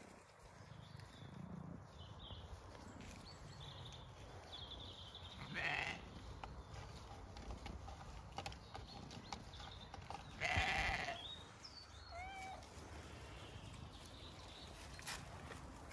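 Zwartbles rams bleating, two calls about six and ten seconds in, the second the louder and longer.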